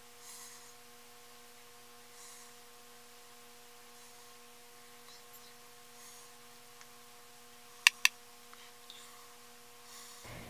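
A steady electrical hum of several even tones from a glitching audio recording, with the voice dropped out. Two sharp clicks come close together about eight seconds in.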